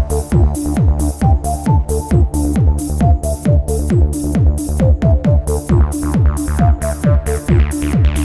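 Background electronic dance music, trance-like, with a fast steady beat a little over two a second, a falling low sweep on each beat, and a bouncy synth melody of short notes.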